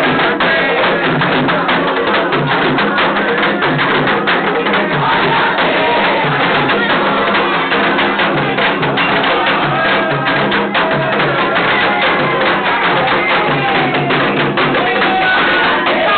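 Candomblé ceremonial music: atabaque hand drums beating a fast, steady rhythm while a group of voices sings a chant over them.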